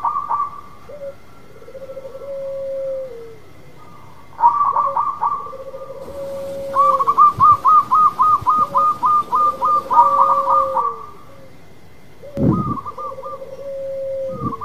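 Zebra dove (perkutut) cooing: long low held coos that drop at the end, alternating with fast runs of short higher notes at about four a second. A low thump sounds near the end.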